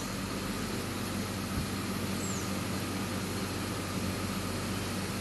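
Zoomlion ZR185 piling rig's diesel engine running steadily at idle: an even, low hum.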